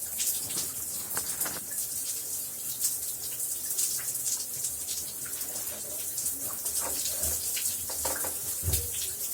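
Shower running: a steady hiss of falling water spray with irregular small splashes.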